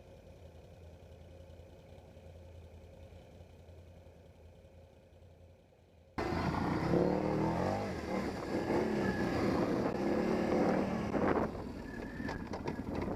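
Quad bike (ATV) engine: a faint low idle, then about six seconds in a sudden jump to the engine running loud and revving up and down.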